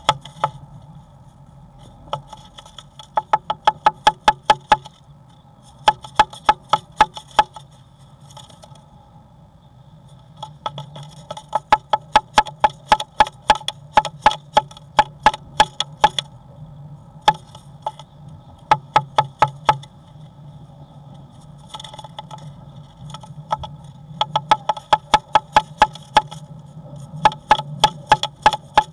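A great tit inside a wooden nest box making rapid runs of sharp taps on the wood, about seven a second, in bursts of one to four seconds with short pauses. A steady low hum runs underneath.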